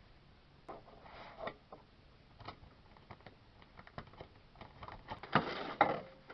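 Drawing pen scratching across the surface in short strokes, with scattered light taps and clicks; the longest, loudest strokes come a little after five seconds in.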